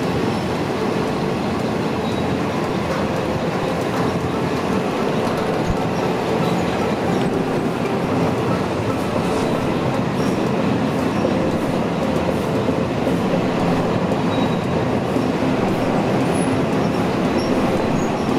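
Passenger train running along the track, heard from aboard a carriage: a steady running noise of wheels and carriage.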